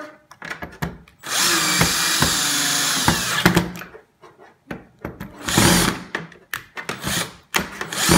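Power drill driving screws into a TV stand base: one steady run of about two seconds, then shorter bursts with clicks in the second half. Just afterwards a screw is said to have stripped.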